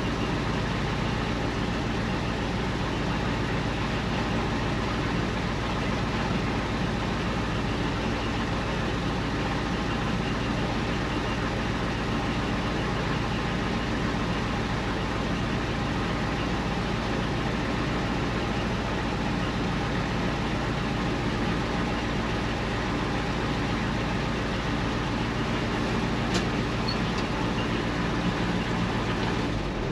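International 4600 dump truck's 7.3 IDI non-turbo diesel engine running steadily at an even pitch and loudness.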